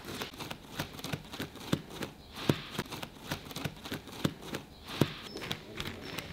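Gloved hands working the folds of a pleated mesh insect screen: crisp rustling and crackling of the pleats with irregular light taps and clicks, a few louder ones.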